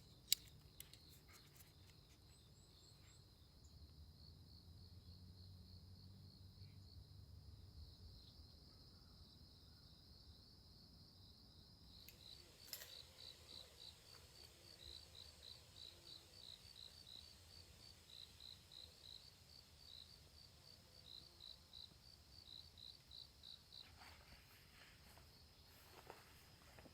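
Faint chorus of autumn insects: a steady high-pitched trill, joined about halfway through by quick chirps in short repeated groups.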